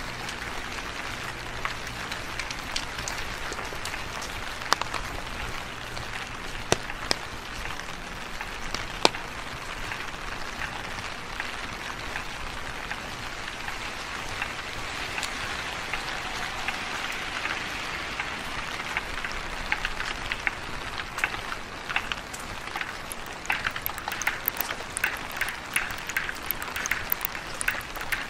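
Steady rain falling on wet pavement and street, with a few sharp drips or taps in the first half and many closely spaced taps and splashes in the last third.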